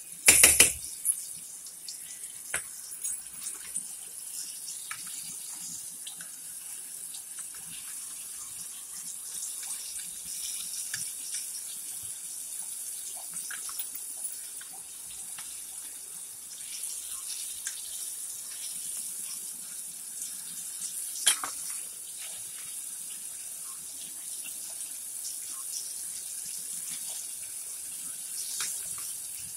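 Serving spoon knocking and scraping against metal pots and a china plate as mashed potatoes and sliced carrots are dished up, over a steady hiss. There is a loud clatter just after the start and a sharp knock about 21 seconds in.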